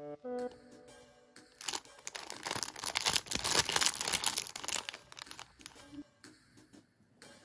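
Clear plastic snack wrapper crinkled and torn open by hand, with loud crackling for a few seconds through the middle and a few lighter crinkles and clicks after it. A short musical phrase plays at the very start.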